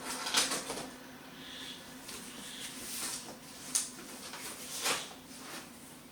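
Packaging being handled and rustled during unboxing, with three louder crinkling bursts: about half a second in, near the four-second mark and about a second later.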